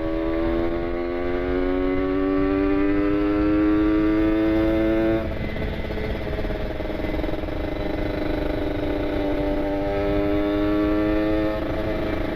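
Kawasaki Ninja RR 150's two-stroke single-cylinder engine through an R9 carbon aftermarket exhaust, pulling hard under acceleration. Its pitch climbs for about five seconds, drops suddenly as it shifts up, then climbs slowly again until a second drop near the end.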